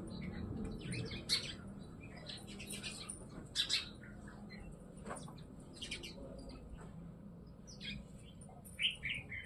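Small birds chirping: short, sharp chirps come at irregular intervals, a few of them louder than the rest.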